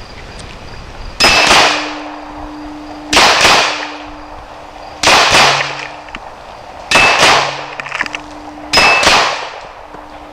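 Glock 26 9mm pistol firing in five quick pairs of shots (double taps) about two seconds apart, with a metallic ringing tone hanging on between the pairs.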